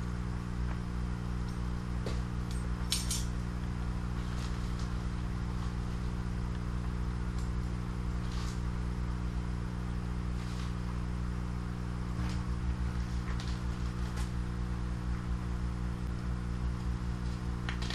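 Steady electric hum of the air pump feeding the hydroponic tank's air stones, with a few light clicks and scrapes as a plastic measuring cup and pitcher are handled.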